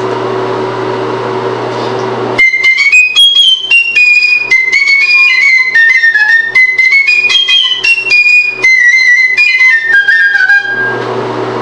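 A flute playing a fast, high passage of short detached notes, starting a couple of seconds in and ending on one held note near the end. A steady room hum is heard before and after the playing.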